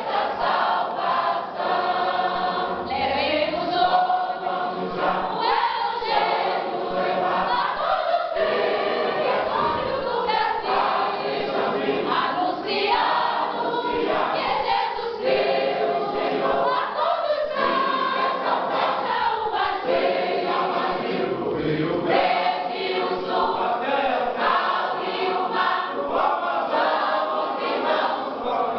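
Church choir singing a gospel hymn together.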